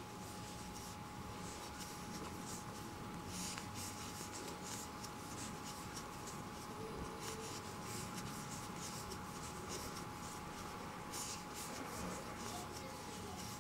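Faint scratchy rubbing and rustling of cotton yarn being worked with a crochet hook, as double-crochet stitches are hooked and pulled through, in small irregular strokes.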